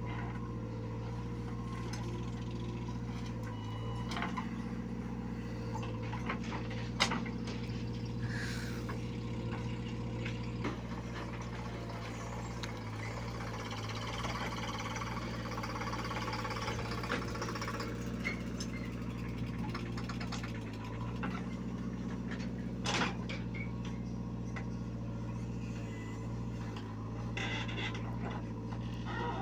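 JCB 3DX backhoe loader's diesel engine running steadily under load as it digs and loads soil, with two sharp knocks.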